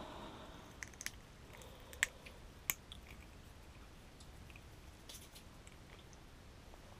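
Faint handling sounds of hands taking a small panfish off an ice-fishing jig: a few light clicks and rustles, the sharpest about two seconds and nearly three seconds in, with a few more near five seconds, over a faint low background.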